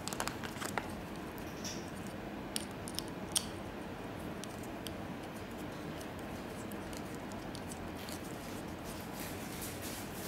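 A few sharp small clicks and scrapes of an eGo e-cigarette battery being handled and screwed into its USB charger, over a steady background hiss.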